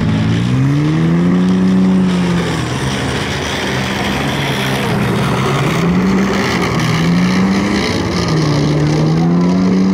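CVR(T) Scimitar light tracked armoured vehicle driven hard over rough ground, its engine revving up and easing off several times over a steady noise of tracks and running gear.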